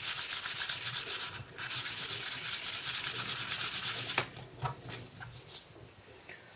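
Abrasive rubbing on the steel magazine tube of a Mossberg 500A shotgun: fast, even back-and-forth rasping that smooths the ground-down putty patch flush. It pauses briefly, stops suddenly about four seconds in, and a few light knocks follow as the tube is handled.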